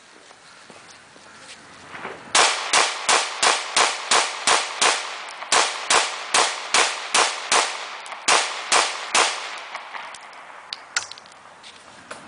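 Caracal F 9mm pistol firing 115-grain SNB rounds: about eighteen shots in three quick strings, roughly three shots a second, with short pauses between. A single lighter click comes about eleven seconds in.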